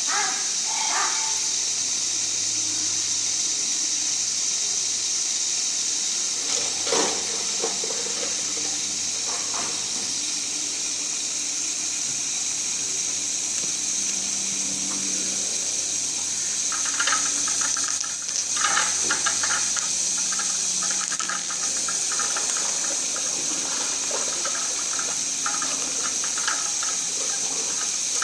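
Steady hiss of running water pouring into a shallow pool.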